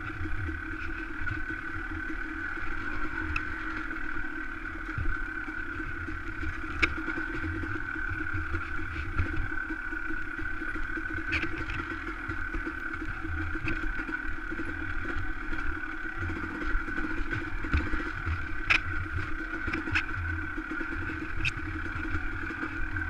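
Dirt bike engine running at steady revs as the bike rides slowly over a rocky trail, with occasional sharp knocks.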